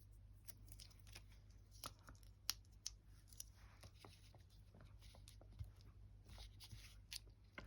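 Near silence with faint scattered clicks and small taps of rubber cling stamps being peeled off their backing and pressed onto an acrylic stamping block.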